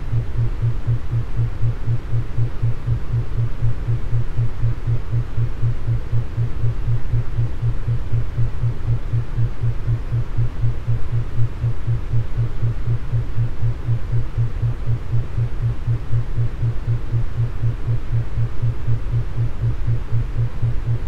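Brainwave-entrainment 'beat' track: a low hum-like tone pulsing on and off evenly, a few times a second, over a steady noise bed.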